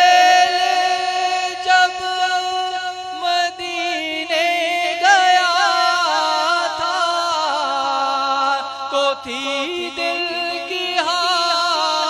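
Male naat reciter singing in Urdu through a microphone and loudspeakers, drawing the line out in long, wavering, ornamented notes.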